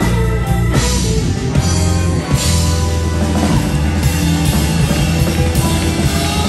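Live rock band playing loudly: electric guitar, electric bass and drum kit together.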